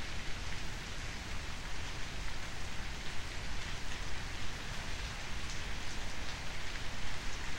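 Steady rain falling: an even hiss throughout, with a few sharper drop sounds in the second half.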